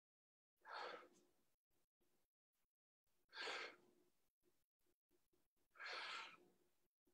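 Three faint, breathy exhales about two and a half seconds apart: a person breathing out hard with each rep of dumbbell deadlifts.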